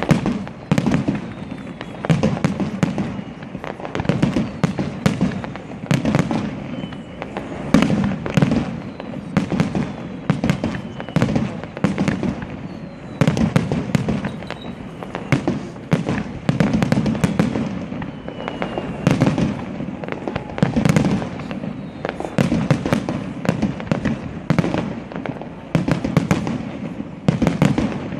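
Fireworks display: a dense, irregular run of bangs and crackles over recurring low booms, with a few faint short falling whistles.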